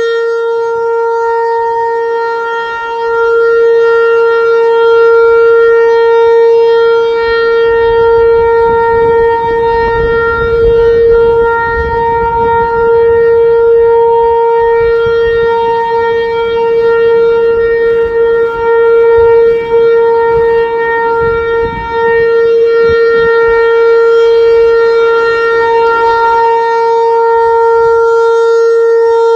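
Outdoor tornado warning siren sounding one steady, unbroken tone, its pitch held level while its loudness swells and dips slightly.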